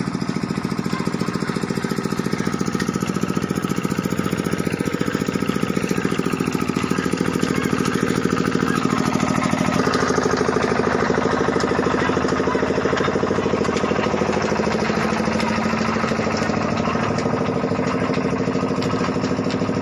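An engine running steadily with an even beat. About ten seconds in, its note shifts and it gets slightly louder.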